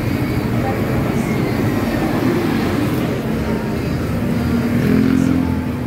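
Busy road traffic: vehicle engines running past in a steady rumble, with one louder vehicle passing about five seconds in.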